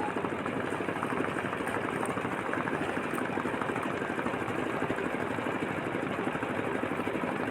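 Small boat engine running steadily with a fast, even chugging beat.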